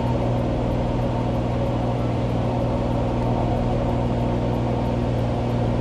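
Single-engine light aircraft's propeller engine running steadily in flight, a constant low drone heard from inside the cabin.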